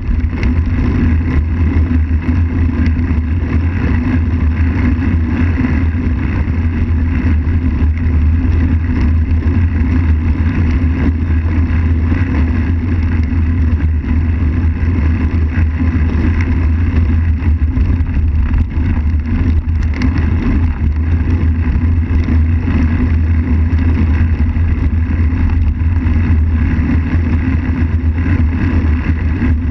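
Steady low rumble of wind and tyre-on-asphalt noise picked up by a camera mounted on a moving road bicycle.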